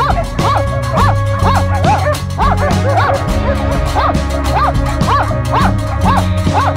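Hunting laikas barking at a bear they are holding at bay, about two barks a second, over background music with steady low notes.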